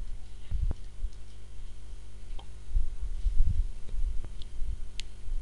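A few scattered faint keyboard keystrokes over a steady low hum and rumble.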